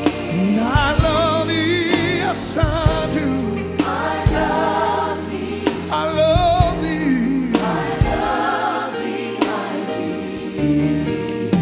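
Live gospel worship music: voices holding long notes with heavy vibrato over a choir, with sustained bass notes and regular drum hits.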